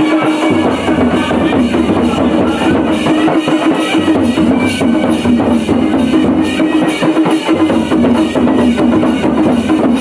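Folk dance drumming: hand and stick drums beaten in a steady, driving dance rhythm, with a held melodic line sounding over the beat.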